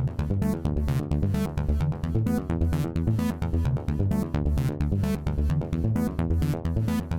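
Electronic music with a steady fast beat over synthesized bass and chord notes, no vocals.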